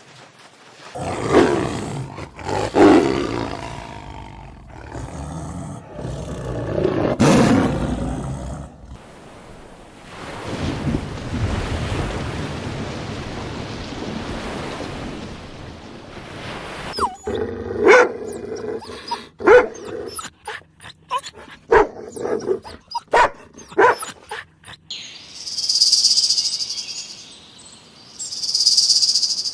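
A run of different animal calls one after another. First come several deep roars or growls, then a stretch of noisy rumbling, then a series of short sharp calls, and near the end two high buzzing insect trills.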